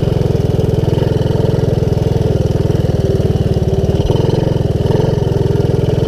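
Honda ATC200S three-wheeler's single-cylinder four-stroke engine running steadily while riding, its exhaust beat dense and even.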